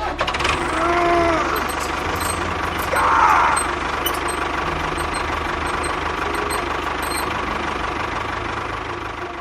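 A motor running steadily with a noisy whir, its pitch briefly rising and falling about a second in and again about three seconds in.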